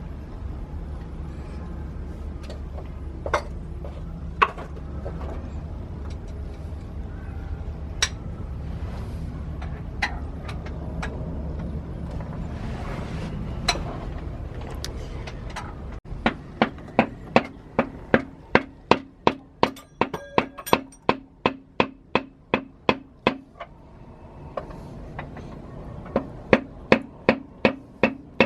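A steady low hum with a few scattered clanks, then, after an abrupt change about 16 seconds in, a run of sharp ringing strikes about two a second, which stop briefly and start again near the end.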